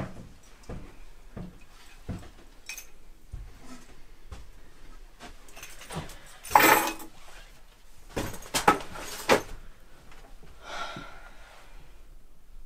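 Scattered knocks, clicks and clinks of objects being handled and moved about inside a small wooden room, with a louder clatter about six and a half seconds in and a few sharp clicks soon after.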